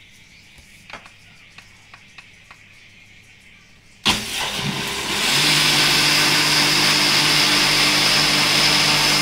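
Countertop blender switched on about four seconds in, blending liquid pancake batter of milk, egg and flour. It starts loud and steps up to a steady higher speed about a second later. Before it starts there are only a few faint clicks.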